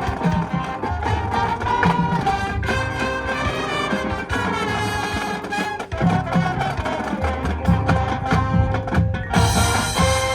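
High school marching band playing: brass holding sustained chords and lines over a steady drum beat.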